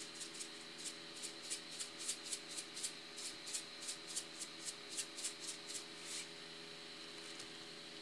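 Metal spoon stirring and tossing diced tomato and cucumber in a bowl: a quick, light scrape-click with each stroke, about three a second, stopping about six seconds in.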